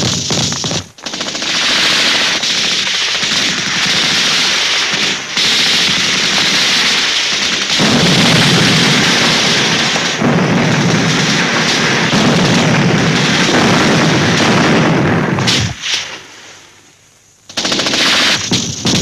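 Battle sound in a war film: sustained, dense machine-gun and rifle fire with no break. It dies down for a moment a few seconds before the end, then starts again.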